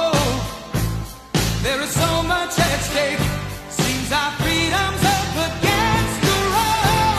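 Background music: a song with a singing voice over drums and bass, briefly dropping out about a second in.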